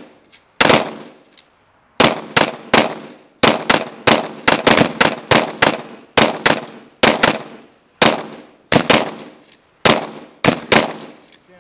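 Rapid pistol fire: about two dozen sharp shots in quick strings, several a second, each with a short ringing tail. There is a pause of about a second near the start.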